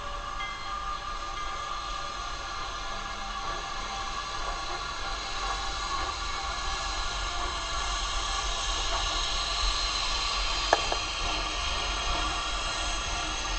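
Narrow-gauge steam locomotive 463, a K-27 2-8-2, rolling slowly past on arrival with a steady hiss of steam that grows louder as it comes by. A single sharp knock sounds about eleven seconds in.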